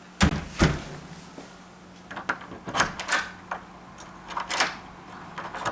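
Kwikset deadbolt being turned back and forth, the bolt thrown and retracted into the new strike plate: a series of metallic clicks and clunks, the two loudest about half a second in. The bolt runs smoothly, a sign that the strike plate is well aligned.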